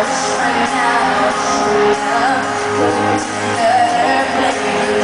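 Live pop music: two female vocalists singing with band backing, heard from among the crowd in a large hall.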